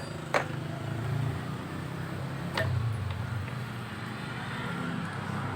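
A motor vehicle engine running steadily in the background, with two sharp metallic clicks: one about a third of a second in and one about two and a half seconds in.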